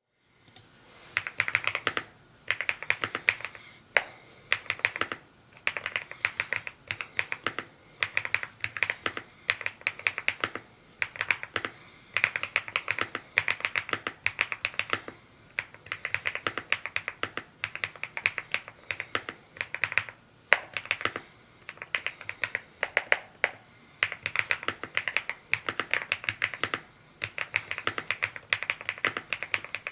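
Typing on an Evo80 mechanical keyboard: fast runs of key clicks in bursts of a second or two, broken by short pauses between words.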